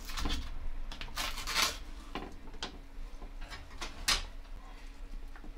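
Retort sauce pouch being torn open and handled: a run of sharp crinkles and rustles, loudest about a second and a half in and again about four seconds in.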